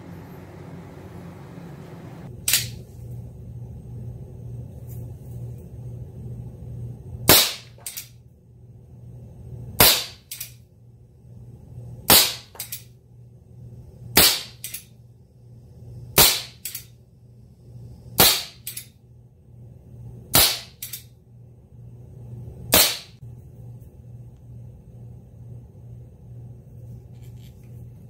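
Hahn 45 CO2 BB revolver, a single-action replica of the Colt Peacemaker, firing nine loud shots: a lone first shot, then eight more about two seconds apart. Most shots are followed about half a second later by a fainter click.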